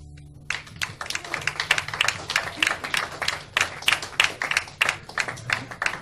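Audience applauding with many separate claps, starting about half a second in as the ringing of the last acoustic guitar chord fades out.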